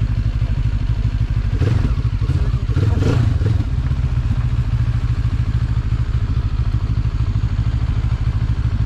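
Benelli TRK 702's parallel-twin engine running steadily at low revs as the motorcycle rolls slowly over gravel. There is a short bout of clatter about two to three seconds in.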